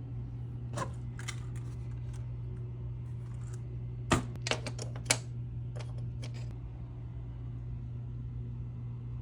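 A few sharp clicks and taps of small parts being handled, the loudest about four seconds in and again a second later, over a steady low hum.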